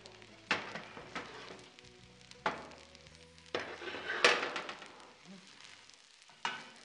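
Bulgur sizzling in a hot steel pot, flaring in short hissing bursts each time it is stirred with a wooden spoon, about six times.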